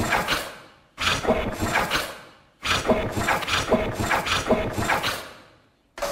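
Robot sound effect: bursts of clattering mechanical clicks and rattles mixed with brief tones, each burst fading away. The first burst is already fading, a second starts about a second in, and a longer third runs from about two and a half seconds to nearly six.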